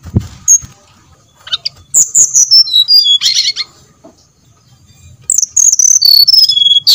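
Brown-chested jungle flycatcher singing two phrases of clear whistled notes, each stepping down in pitch from very high to mid-high, used as a lure song. A low thump right at the start.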